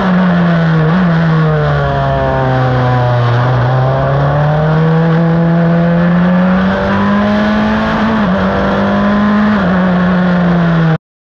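Crawford FL15 open-wheel race car's engine running under way, heard on board. The engine note falls over the first three seconds, climbs steadily back up, and cuts off abruptly just before the end.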